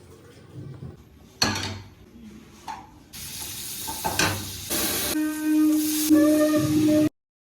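Food sizzling in a frying pan: a hiss that swells from about three seconds in, after some light clatter and a knock. A steady low hum joins about five seconds in, and the sound cuts off abruptly near the end.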